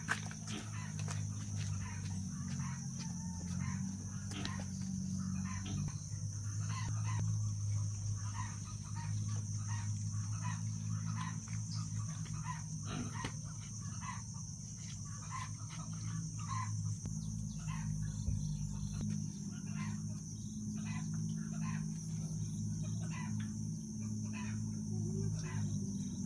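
Chickens clucking in short, scattered notes over a steady high-pitched insect drone and a low steady hum.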